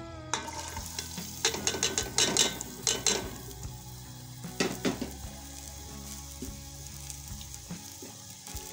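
Sliced onions sizzling as they hit hot cooking oil in an aluminium pot. In the first three seconds there is a run of sharp metallic clatter as the ladle and pot are knocked while the onions go in and are stirred, and another clatter about five seconds in. After that the onions keep frying with a steady sizzle.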